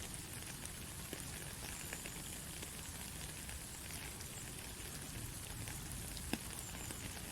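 Steady rain falling: an even hiss with scattered drops ticking, and one sharper drop about six seconds in.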